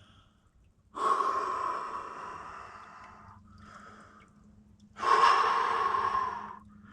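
A man's heavy breathing as he gets into freezing spring water: two long, forceful exhales, one about a second in and one about five seconds in, each starting loud and fading, the gasping reaction to the cold shock.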